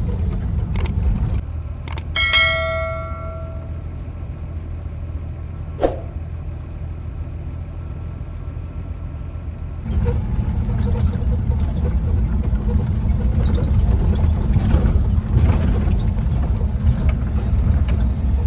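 Off-road vehicle's engine running with a steady low rumble that eases off about a second and a half in and picks up again near ten seconds. About two seconds in there is a single bright metallic ring that dies away over a second or so, among a few sharp clicks and knocks.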